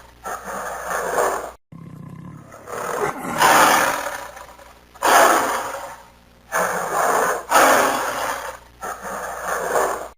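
Lion roaring: about five long, rough roars one after another, with a sudden cut about a second and a half in.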